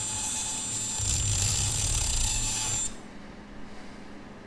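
Small cordless rotary tool running with a steady high whine while its bit grinds out the hole of a ring terminal to enlarge it. The sound grows louder about a second in as the bit bites into the metal, then cuts off about three seconds in.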